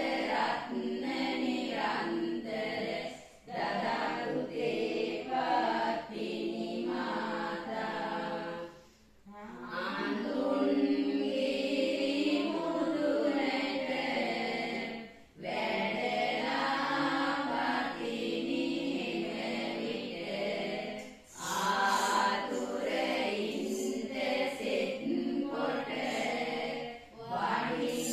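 Women's voices chanting a devotional song together, unaccompanied. It goes in long sung phrases with a short breath pause between them about every six seconds.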